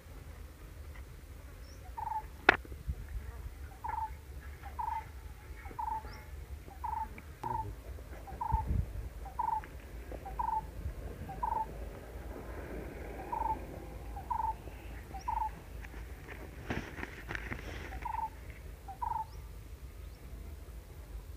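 An animal calling: one short note repeated about twice a second, on and off for most of the stretch. A single sharp click comes about two and a half seconds in, and there is a brief rustle near the end.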